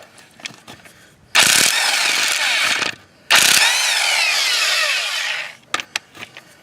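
Chicago Electric half-inch electric impact wrench run twice in bursts of about one and a half and two seconds on skid loader wheel nuts, its whine falling in pitch during each burst. A few sharp clicks follow near the end.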